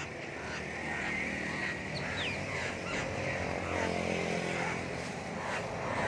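Caged black-throated laughingthrush calling in short gliding whistles and repeated notes, over the steady drone of an engine running.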